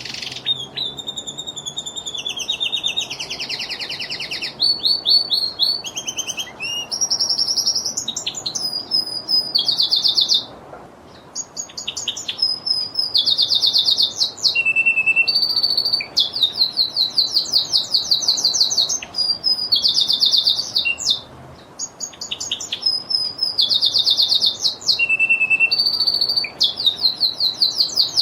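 Lizard canary singing: a long song of fast trills, rapid repeated notes that jump to a new pitch every second or so, with two short breaks.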